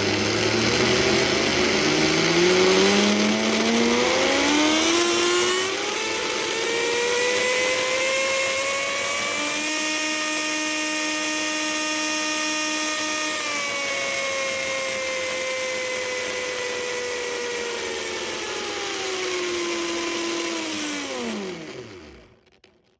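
Brushless RC boat motor, driven through its ESC from a servo tester, spinning up with a steadily rising whine, holding one steady pitch for a few seconds about halfway through, then slowing with a falling whine and stopping just before the end.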